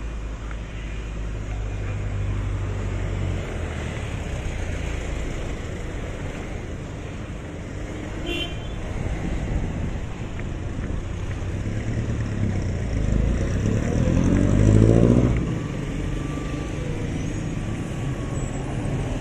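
Road traffic passing along a city street: a steady low rumble of engines, with one vehicle's engine rising in pitch and growing louder as it passes close, loudest about three-quarters of the way through, then falling away.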